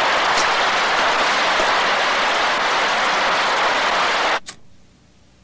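Heavy rain falling in a storm, a steady loud hiss that cuts off abruptly about four and a half seconds in with a short click, leaving only faint room tone.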